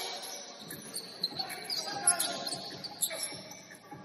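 Basketball game sounds in a gym: repeated short, high sneaker squeaks on the court and a few sharp thuds of the ball bouncing, with players' voices.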